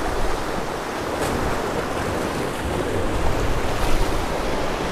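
Sea surf washing and breaking against rocks below, a steady rushing wash, with wind buffeting the microphone.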